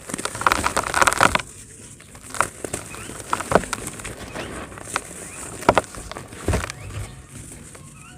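Dry pure-cement chunks being crushed and crumbled: a dense burst of crunching about half a second in, then single sharp cracks and crumbles every second or two.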